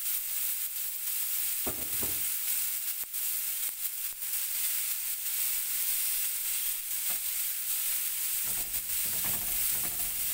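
Marinated tiger prawns frying in hot oil on a flat dosa pan: a steady sizzling hiss with scattered small pops and crackles.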